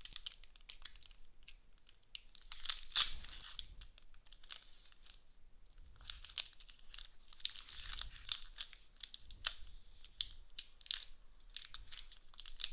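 Pokémon card booster pack's foil wrapper being torn and crinkled open by hand, in short crackling rips and rustles that come in spurts, loudest about three seconds in and again around eight seconds in.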